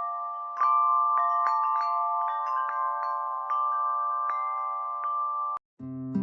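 Chimes struck at irregular moments, their bright notes overlapping and ringing on, played as one of the app's tinnitus-relief sound tracks. The chimes stop abruptly after about five and a half seconds, and a lower sustained chord starts just after.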